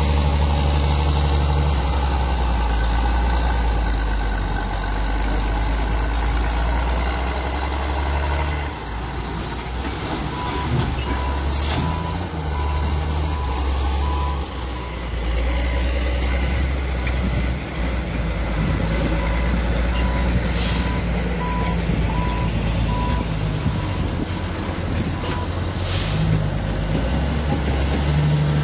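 Heavy dump truck's diesel engine running under load as it tips soil from its raised bed, the engine note swelling and easing. A high beeper sounds about twice a second for several seconds near the middle and again later, and three short hisses of released air cut through, typical of truck air brakes.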